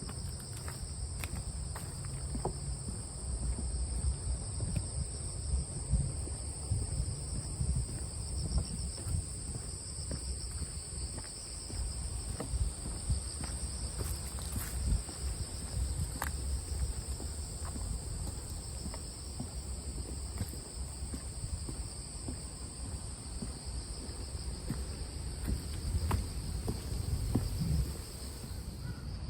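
A steady chorus of insects singing, two high continuous trills held throughout, over a low irregular rumble with scattered faint clicks.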